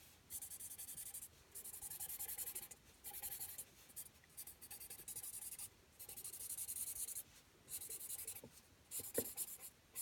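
Colouring strokes on yupo synthetic paper: a scratchy hiss of quick back-and-forth shading, in bursts of about a second with short pauses between them.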